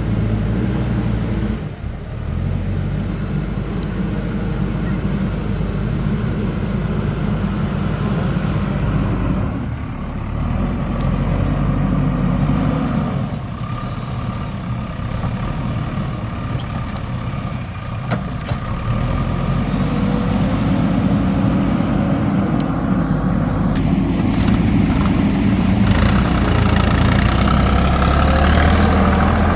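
Diesel engines of a JCB backhoe loader and tractor running at a worksite, the engine note swelling and easing as the machines work.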